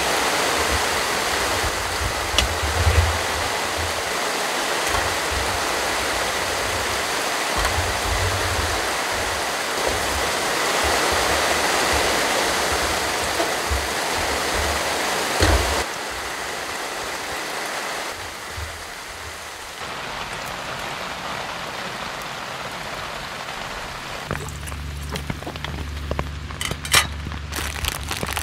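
Heavy rain falling steadily, softer from about halfway through, with low rumbles underneath. Near the end a low steady hum comes in and a few small clinks of cooking gear sound.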